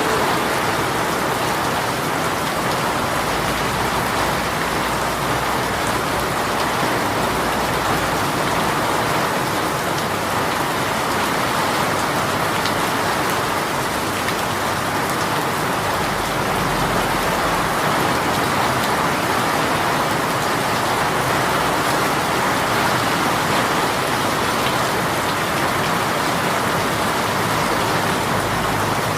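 Heavy shower rain falling steadily on a surface.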